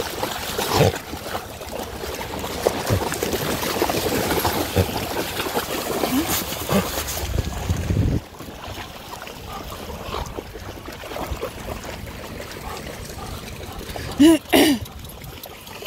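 Shallow seawater sloshing and splashing as dogs wade through it, with a brief low rumble about eight seconds in. A short, loud, high-pitched call cuts in near the end.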